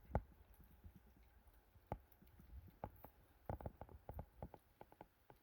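A puppy pawing and nosing at an ice cube in its water bowl: faint, scattered clicks and taps, a small cluster of them a few seconds in.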